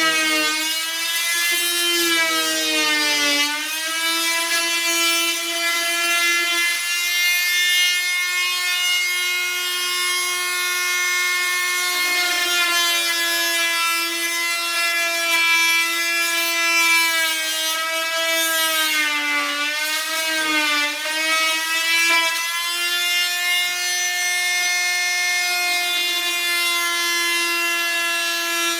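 Electric oscillating multi-tool cutting into a timber door lining: a steady high-pitched buzz that sags in pitch when the blade is pushed harder into the wood, briefly about two seconds in and again about twenty seconds in.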